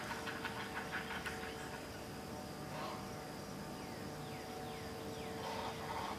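Great blue heron chicks' rapid clattering begging chatter at the nest in the first second or so, with a few short falling bird notes midway, over a faint steady hum.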